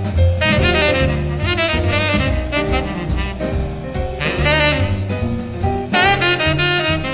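Instrumental jazz: a saxophone playing phrases over double bass and a drum kit.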